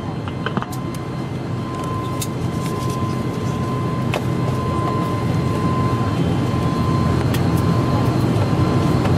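ATR 72-500's Pratt & Whitney PW127 turboprop engine running, heard from inside the cabin: a steady low drone that grows gradually louder, with a thin steady whine over it and a few faint clicks.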